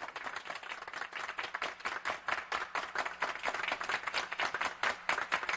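Applause: many hands clapping in a dense, irregular patter.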